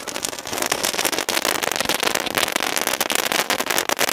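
Handheld pistol-shaped 'Top Gun' spark-fountain firework spraying sparks: a steady loud hiss with dense, rapid crackling.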